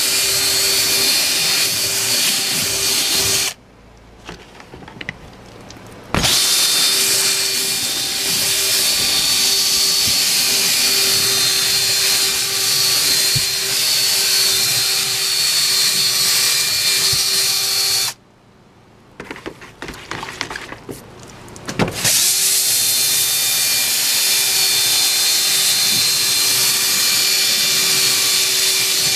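DeWalt cordless drill spinning a yellow nylon drill brush scrubbing a soapy cabinet surface: a steady motor whine with bristle scrubbing. The drill stops twice, for about three and four seconds, about 3.5 and 18 seconds in, and starts again abruptly each time.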